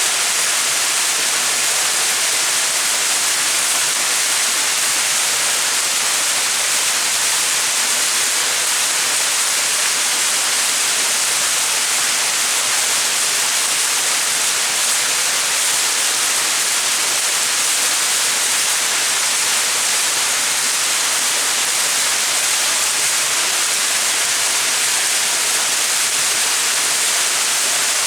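Small mountain waterfall, water falling and splashing in a steady, even rush with no breaks.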